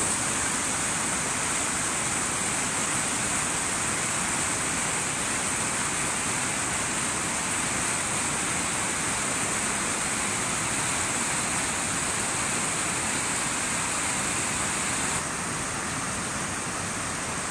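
Swollen mountain river rushing in whitewater over rocks and boulders: a steady, even rush of water that drops a little in level about fifteen seconds in.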